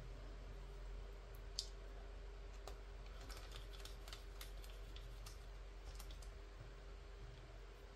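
Faint, scattered small clicks and taps of hands and a screwdriver handling parts inside an open laptop, with one sharper click about a second and a half in. A steady low hum sits underneath.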